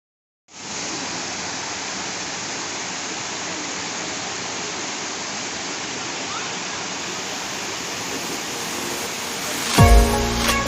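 Steady roar of a waterfall, a dense even rush of falling water that starts after a brief moment of silence. Near the end, music with a strong bass line comes in over it.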